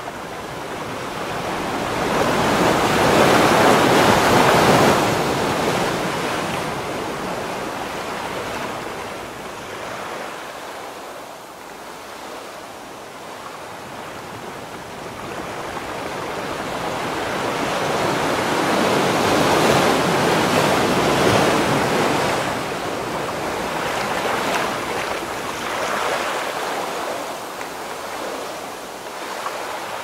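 Ocean surf: waves rushing in and drawing back, swelling loudest about four seconds in and again around twenty seconds in, with smaller swells near the end.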